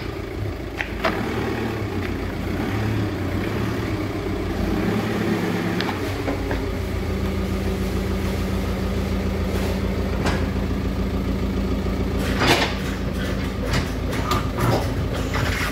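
Four-cylinder 2.0 TDI diesel engine of a VW Touran running steadily, its sound that of a failing injector. A few sharp clicks or knocks come through, the loudest about twelve and a half seconds in.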